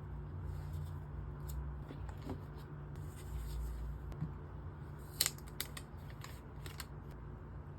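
Laptop packaging being handled during an unboxing: scattered small clicks and snips of box and wrapping, the sharpest about five seconds in. A steady low hum runs underneath.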